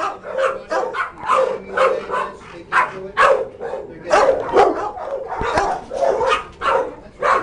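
Shelter dogs barking, barks overlapping and coming about two to three a second.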